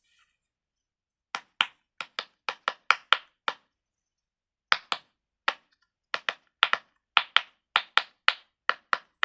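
Silicone pop-it fidget toy bubbles being pressed through, a string of sharp pops at about three a second, pausing briefly partway through. The pops are a little bit loud, but not that loud.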